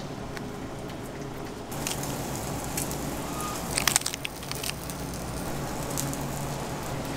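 Crisp crackling and rustling of romaine lettuce leaves being laid onto a cream-cheese-spread bagel, loudest in a brief cluster about four seconds in, with a few light handling clicks. Under it is a steady low hum that gets louder about two seconds in.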